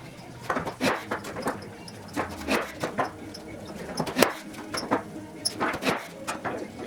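Blind rivets being pulled into the wing skin with a rivet puller: an irregular run of sharp snaps and clicks, sometimes several a second, as the tool works and the rivet mandrels break off.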